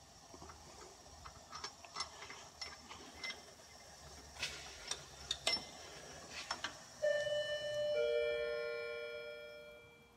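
Socket and 3/8 flex-head ratchet clicking and clinking irregularly as the starter's rear bolt is worked loose. Then two ringing tones about a second apart, the second lower, fading over a couple of seconds.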